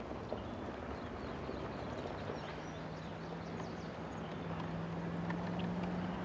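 Classic Range Rover driving along a dirt road: steady engine hum with tyre and road noise. The engine note rises slightly in pitch in the second half, and a few faint high chirps sound over it.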